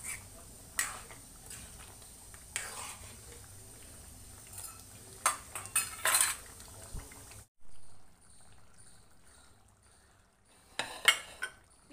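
Steel spoon clinking and scraping against a kadhai while stirring a thick keema and potato gravy, in a few scattered knocks, with a quieter stretch and a couple more clinks near the end.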